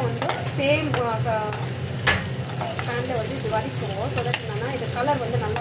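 Cashews and raisins frying in a steel pan, sizzling as a perforated steel ladle stirs them, the ladle clicking and scraping against the pan with a sharper knock about two seconds in.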